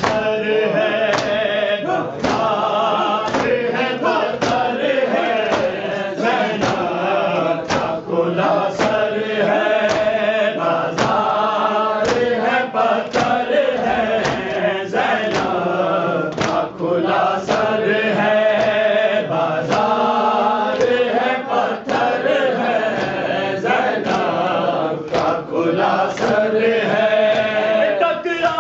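Voices chanting a noha, an Urdu mourning lament, in a steady rhythm. Sharp beats fall about every three-quarters of a second, in time with the chant.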